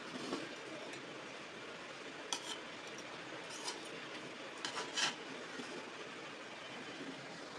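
A serving spoon clinking against a metal cooking pot and plate as cooked rice is scooped out: a handful of sharp clinks between about two and five seconds in, the loudest near the end of them, over a steady background hiss.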